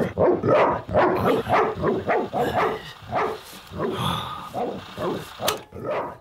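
A dog barking over and over in short, quick barks, about three a second.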